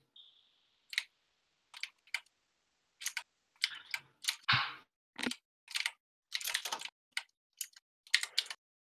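Computer keyboard typing in short irregular bursts and clusters of keystrokes, picked up over a video-call microphone that cuts to silence between them.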